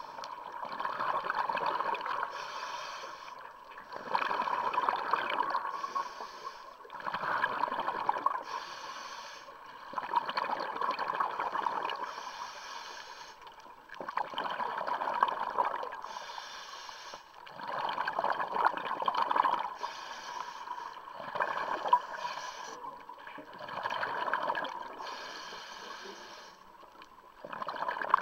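Scuba diver breathing through a regulator underwater: the hiss of each inhalation alternating with the bubbling of the exhalation, about one breath every three seconds.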